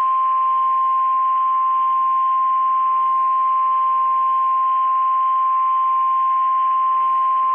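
NOAA Weather Radio 1050 Hz warning alarm tone: one steady, unbroken high tone over faint radio hiss. It signals that a weather warning broadcast follows.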